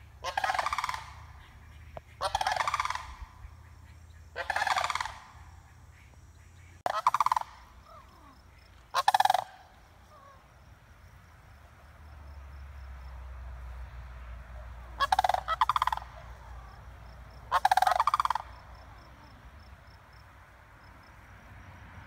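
Sandhill cranes giving their rattling, rolling calls: seven calls a couple of seconds apart, with a longer pause in the middle. A low steady rumble lies underneath.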